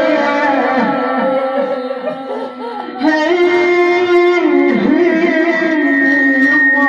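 A woman's voice chanting a mournful Iraqi lament (na'i) in drawn-out, wavering phrases, with a long held note starting about three seconds in.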